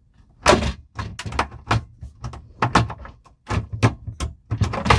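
Wooden cupboard door knocking and its quick-release hinges clicking as the stiff door is worked loose from them: a string of sharp knocks and thunks, the loudest about half a second in.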